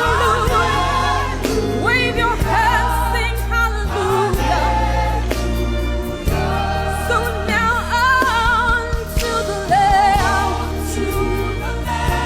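Gospel worship music: singers with vibrato over a band with a steady, sustained bass.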